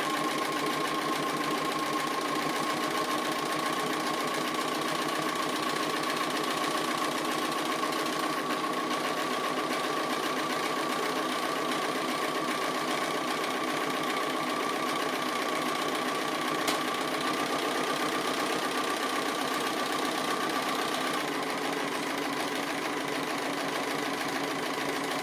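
Sewing machine running steadily at speed, free-motion straight stitching with the feed dogs dropped. Its motor whine holds steady and eases slightly near the end.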